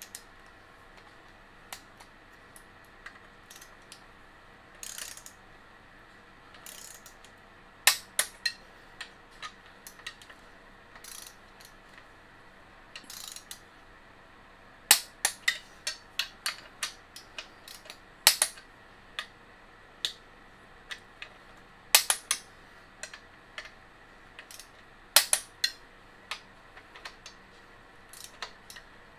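Hand socket ratchet clicking in short bursts with pauses between, as a bolt on the engine bracket is run in with a long extension.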